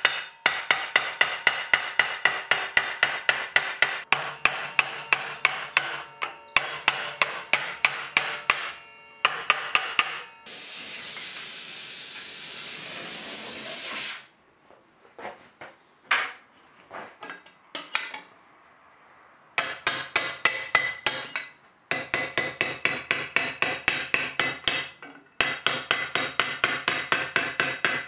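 Steel hammer beating 4130 spring-steel armour plate over a stake, in fast runs of several even blows a second. About a third of the way in the blows give way to a few seconds of loud steady hiss, then a few scattered light taps, before the fast hammering resumes.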